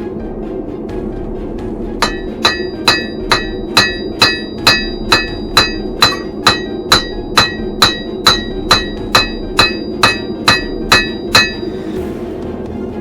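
Blacksmith's hammer striking steel on the anvil in a steady rhythm, about two blows a second for some twenty strikes, each with a bright metallic ring. A steady roar of the forge runs underneath.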